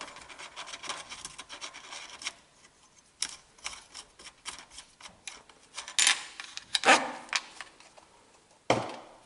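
Hand tools and metal parts of a minibike's small engine being worked on to take off a cover: a run of quick light clicks and rubbing, then scattered clicks and three sharper metallic knocks in the second half.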